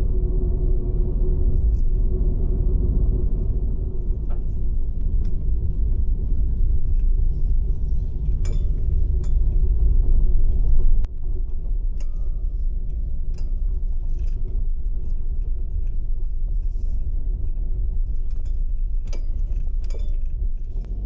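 Steady low road-and-engine rumble heard inside a moving kei van, with small loose items clicking and clinking now and then.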